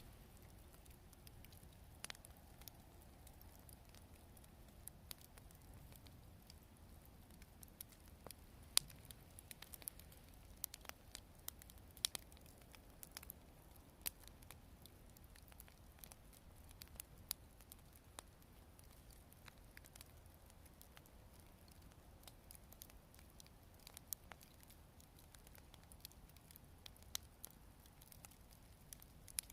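Wood fire crackling softly: sparse, irregular sharp pops and ticks, with a few louder pops among them.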